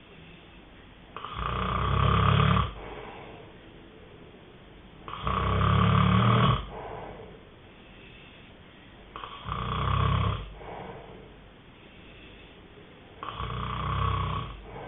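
A sleeping person snoring in a regular rhythm: four snores, about one every four seconds.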